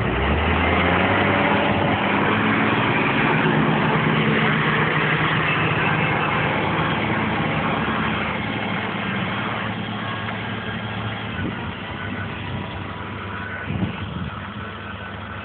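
Tractor engine running steadily under load while ploughing, loud at first and growing gradually fainter over the second half.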